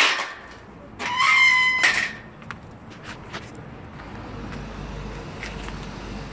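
A metal kennel gate clanks, then squeals on its hinges for about a second about a second in, a steady high-pitched squeak. From about four seconds in a low steady rumble of road traffic builds.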